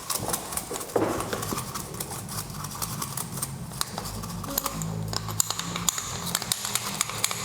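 Brush cleaning coffee grounds off the disassembled burr parts of a Mazzer Omega hand grinder, with many light clicks and taps of small metal parts. A low steady hum starts about a second in.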